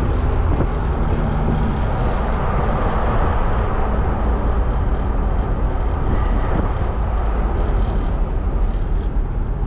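Car driving along a road: steady engine, tyre and wind noise.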